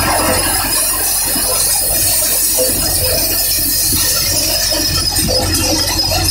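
Zangeer multicrop thresher running and threshing, a loud, steady machine din.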